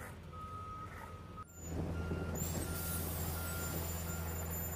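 Vehicle reversing alarm beeping steadily over a diesel engine running. After a sudden change about a second and a half in, a mobile concrete mixer truck's engine is louder and its backup alarm gives short, evenly spaced beeps as it reverses, with a thin high whine over them.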